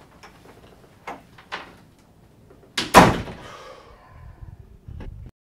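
An office door slammed shut about three seconds in, one loud bang with a short ringing tail, after a couple of lighter knocks.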